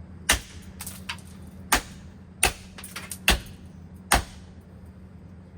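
Five hard, sharp strikes of metal and plastic as a ceiling fan is being smashed, each under a second apart, with fainter knocks between them and a steady low hum underneath.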